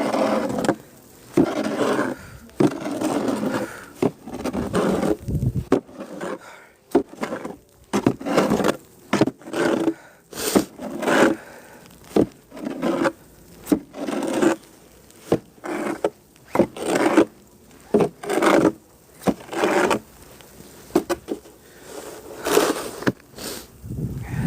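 Snow shovel scraping snow off the ground in quick repeated strokes, about one a second, with sharp knocks as the blade strikes down.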